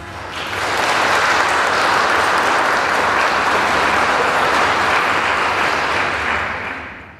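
Audience applauding after a choir's carol: the clapping builds within the first half second, holds steady, then fades out near the end.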